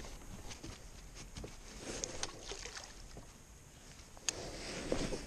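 Quiet small-boat sounds: faint knocks and rustling of handling on board, with one sharp click about four seconds in.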